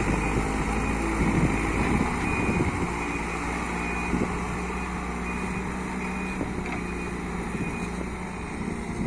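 JCB backhoe loader's diesel engine running steadily as it works the ground. A reversing alarm beeps faintly and repeatedly over the engine.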